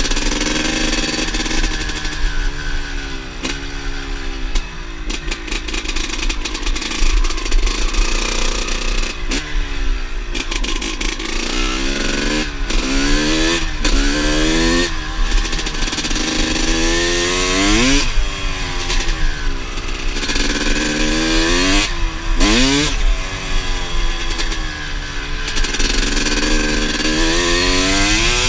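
Motorcycle engine revving hard again and again: its pitch climbs steeply and drops back about a dozen times.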